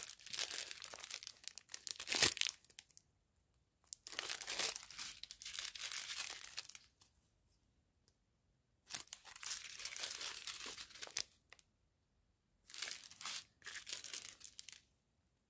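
Small clear plastic sachets of round diamond-painting drills crinkling as they are handled, in four bouts of a few seconds with quiet gaps between.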